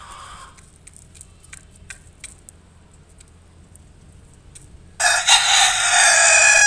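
Faint scattered ticks, then a rooster crows once, loud and close, starting about five seconds in and holding for about two seconds.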